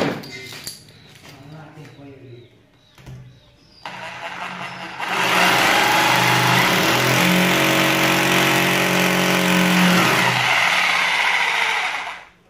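Electric hammer drill with a masonry bit boring into a painted masonry wall: it starts quietly about four seconds in, then runs loud and steady for about seven seconds before stopping sharply near the end. A single sharp knock at the very start.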